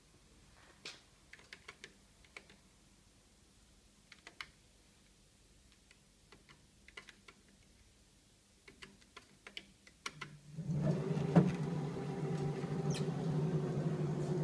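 Light clicks and taps from keypad presses and paper handling, then about ten and a half seconds in the electric motor of an IDEAL 4850-95EP programmable paper guillotine starts up and runs with a steady hum and a sharp click.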